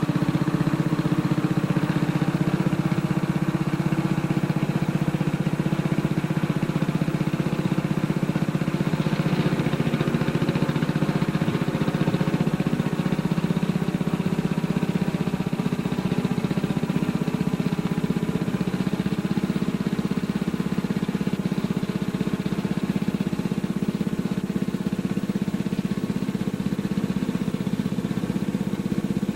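Riding lawnmower engine running steadily, with no change in speed.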